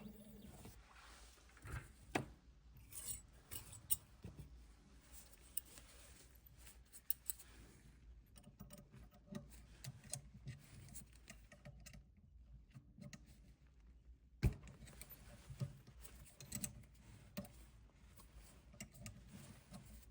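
Faint, irregular clicks, taps and rubbing of small hard objects being handled, with a few sharper knocks, the loudest about two thirds of the way through.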